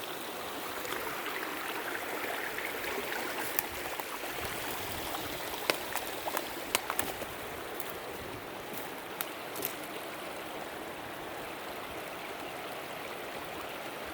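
Rushing stream water from rapids fed by a beaver dam's overflow, a steady noisy rush. A handful of sharp clicks or snaps stand out in the middle.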